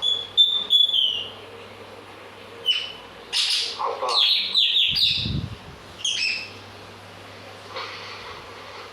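A bird calling: a few high whistled notes, then a quick series of sharp chirps that slide downward in pitch, with a pair more a second later.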